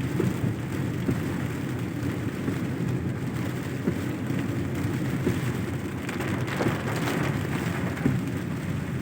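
A vehicle driving in heavy rain: a steady low hum of engine and tyres on the wet road, with rain spattering and occasional sharp drop ticks.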